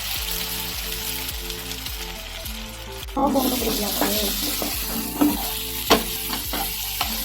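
Food sizzling as it fries in mustard oil in a pan, turning louder and fuller about three seconds in, with a few sharp clinks of a utensil against the pan later on. Background music with a steady beat plays underneath.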